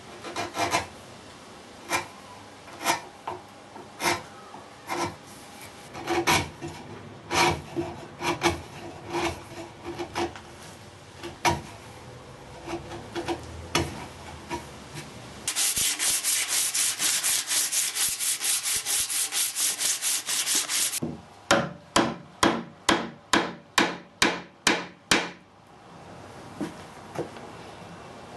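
A chisel paring a chamfer around the end of a cherry-wood staff, making irregular short slicing cuts about once a second. These are followed by about five seconds of fast, steady rubbing on the wood, then a run of about ten even rubbing strokes, roughly three a second.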